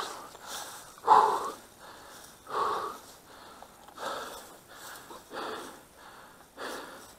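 Heavy, rapid breathing close to the microphone, a breath about every half second, the loudest about a second in.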